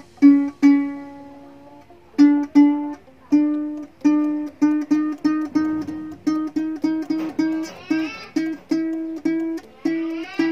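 A ukulele being tuned: one string plucked over and over, each note ringing and fading, while the tuning peg is turned. The plucks come slowly at first, then several a second in the middle, then slower again.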